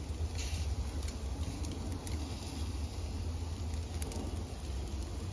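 Charcoal grill with skewered vegetables and ribs sizzling over hot coals, with scattered sharp pops and crackles, over a steady low rumble that is the loudest part.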